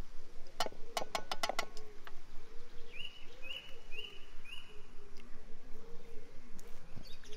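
A quick run of about six sharp taps, then a bird giving four short, high chirps about half a second apart.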